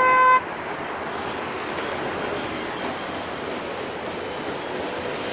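A short, loud single-note horn beep, then a steady rumble of road traffic and the passing diesel-hauled train.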